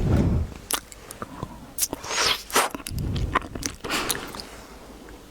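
A person biting into and chewing wax stick candy, with a string of sharp crunches that are loudest at the start and again around three seconds in.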